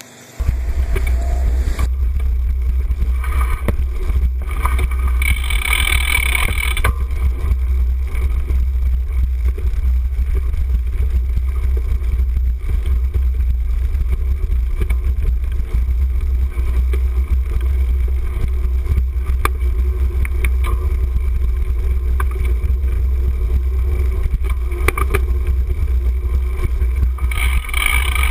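Wind buffeting the microphone of a handlebar-mounted camera on a moving cyclocross bike: a loud, steady low rumble, with rattling from the bike going over rough dirt and grass.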